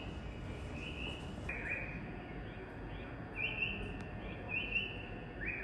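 Bird-like chirps, short and in pairs, repeating about once a second over a steady low rumble.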